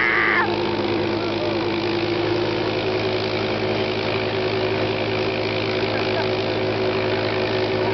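ATV engine running steadily at an even speed, with a person's shout over it in the first half second.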